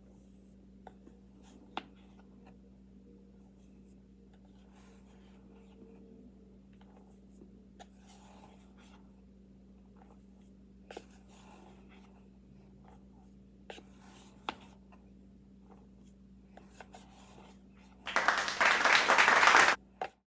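Faint scratchy handling sounds and scattered small clicks over a low steady hum, then near the end a loud burst of rough rustling noise lasting about two seconds.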